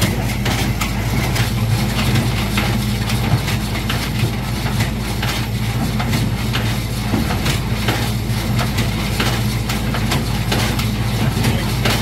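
New Holland 67 Hayliner square baler running behind a 40 hp LS XR4040 tractor: the tractor's diesel runs steadily while the baler's mechanism clacks over and over, tested after its knotter knives were sharpened.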